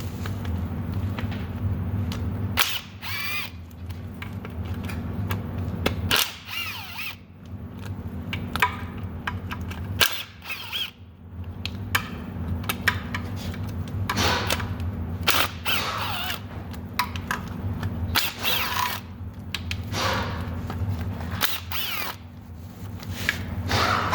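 Bursts of a power tool on engine fasteners during an engine teardown, with sharp metallic clicks and clatter from tools every few seconds, over a steady low hum.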